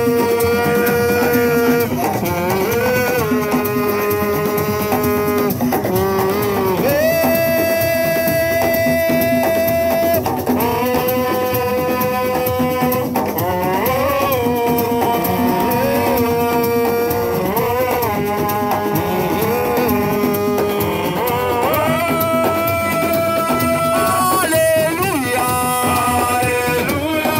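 Music: a melody of long held notes, each sliding up into pitch and held for about two to three seconds, over drums and percussion.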